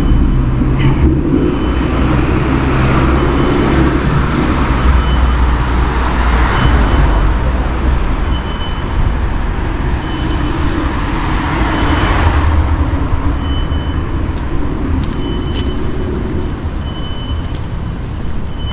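Road traffic noise: a steady low engine rumble, with vehicles passing about six seconds in and again about twelve seconds in.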